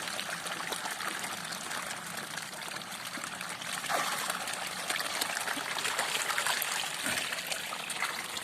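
Pond water trickling, with a steady wash of many small splashes and drips.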